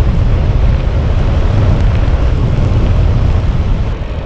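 Wind buffeting the microphone of a bike-mounted action camera: a loud, steady, mostly low rumble that eases slightly near the end.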